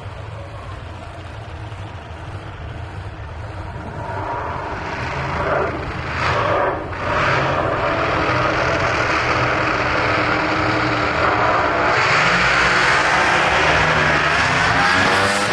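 Twin-turbo open-wheel drag car engine running and revving, growing louder partway through with a few sharp surges, then staying loud with an added hiss near the end.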